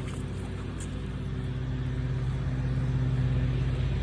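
A car's engine running steadily with a low hum, slowly getting louder.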